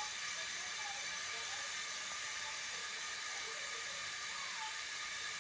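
Milk boiling in a pot, giving a steady hiss.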